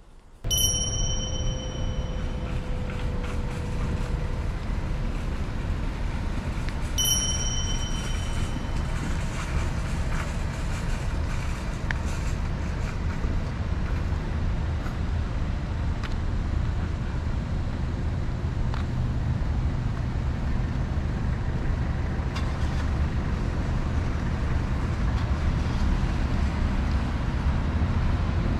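Steady low rumble of road traffic, with two short high ringing tones, one just after the start and another about seven seconds in.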